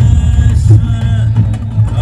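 Loud devotional music over public-address speakers: a deep steady drone with drums and sliding melodic notes above it.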